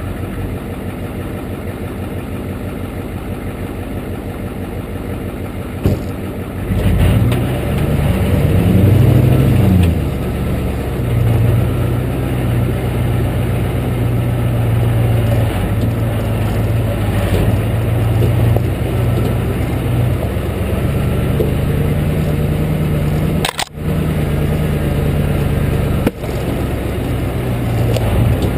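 1993 Ford F-250's 7.3-litre IDI diesel V8 idling, then taking throttle about six and a half seconds in: the note rises and falls once, then the engine runs steadily at low revs as the truck crawls along the trail. Heard from beside the front fender. Two brief drops in the sound near the end.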